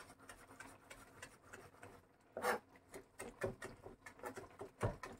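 Kitchen knife chopping a small red chili on a plastic cutting board: irregular light knocks of the blade on the board, with a few louder ones about halfway through and near the end.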